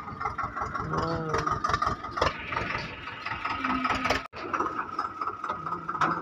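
Tractor engine idling with a steady whine over its low, even beat, with faint voices in the background. The sound cuts out for an instant about four seconds in.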